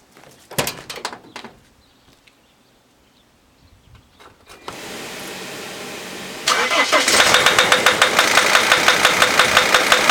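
A few clunks, then the 2004 Dodge Sprinter's OM647 five-cylinder diesel cranks for about two seconds and catches. It idles loudly with a steady rhythmic knock, about four a second, which the owner traces to the number 5 injector: unplugging it stops the knock.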